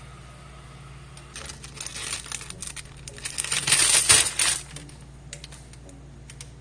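A flurry of rapid clicks and clattering, starting about a second and a half in and loudest around four seconds in, then thinning to a few scattered clicks.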